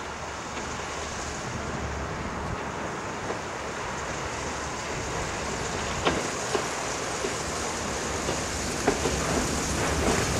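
Small diesel shunting locomotive hauling loaded flat wagons, its rumble growing gradually louder as the train approaches. A few sharp wheel clicks over rail joints come in the second half.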